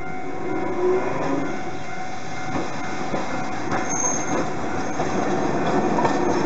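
Hankai Tramway Mo 351-type streetcar approaching and passing close by, its wheels clacking over the rail joints and flat crossing with a brief high squeal about four seconds in. The running noise grows louder toward the end as the tram nears.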